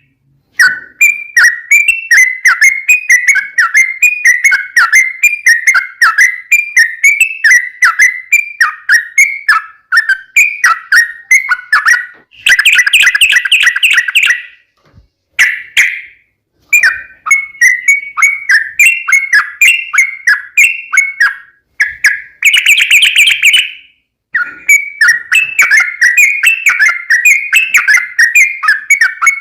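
Yellow-vented bulbul (trucukan) song: quick runs of bright chirping notes, twice breaking into a dense rapid trill of about two seconds, with a few short silent gaps where the recording is cut.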